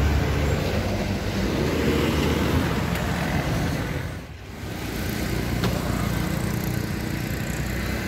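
Road traffic noise: motor vehicles running along a nearby road, steady throughout, with a brief drop about four seconds in.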